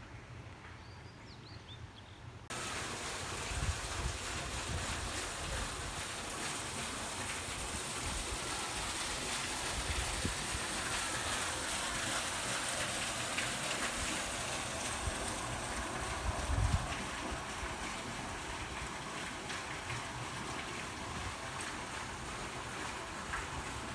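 A few faint bird chirps over quiet outdoor ambience, then about two and a half seconds in a steady rush of running water starts suddenly and carries on, with a few low thumps on the microphone.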